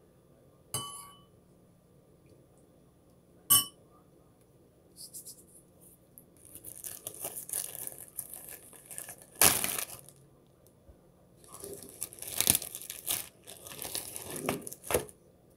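Two sharp clicks, then plastic wrapping crinkling and tearing in several bursts as a ham and cheese sandwich is unwrapped by hand.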